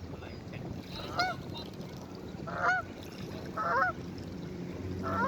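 Goose honking: four short, separate honks, each rising and falling in pitch, about a second apart, over a steady low hum.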